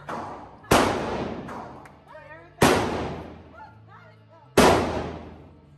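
Three pistol gunshots on an indoor shooting range, about two seconds apart, each a sharp crack followed by a long echo dying away.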